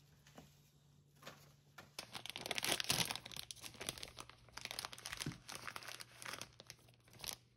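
Clear plastic snack bag crinkling as it is handled and pulled open, in quick irregular rustles, loudest about three seconds in.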